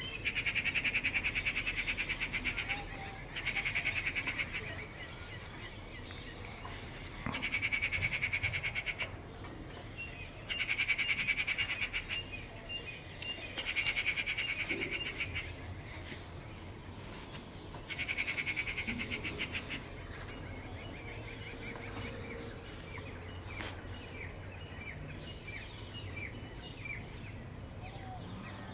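Animal calls: a rapid, buzzing trill that comes in about six bursts of one to two seconds each, followed by fainter short chirps over a steady outdoor background.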